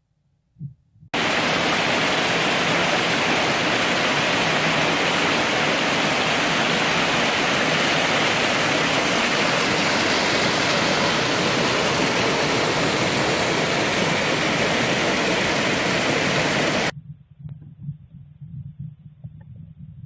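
Mountain stream cascading over rocks, a steady rush of water that starts abruptly about a second in and cuts off suddenly near the end.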